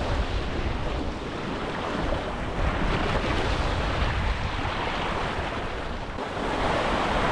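Sea waves washing against the shore, with wind rumbling on the microphone; the wash swells and eases.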